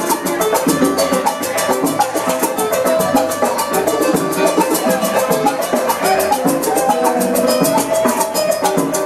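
Salsa music playing loudly, driven by a quick, steady percussion beat.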